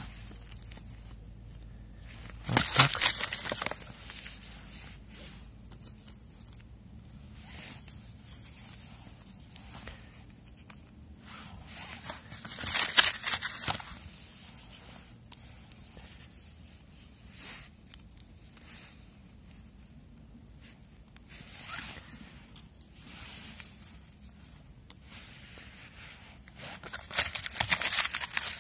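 Hands handling firecrackers as they are bundled together: tearing and crinkling noises, louder in three bursts, about three seconds in, near the middle and near the end.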